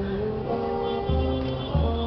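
Procession band playing a slow march: long held notes over deep bass notes that come in about a second in and again near the end.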